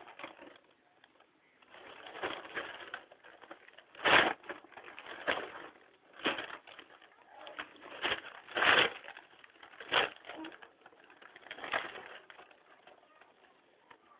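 Newspaper rustling and crinkling as it is handled, in irregular bursts, the loudest about four seconds in and again near nine seconds.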